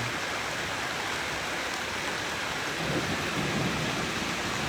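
Flooded Joplin Creek running out of its banks: a steady, even rush of fast-flowing floodwater.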